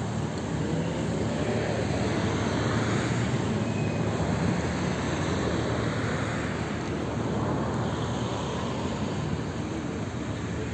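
Steady low rumble of engines, swelling slightly a couple of seconds in.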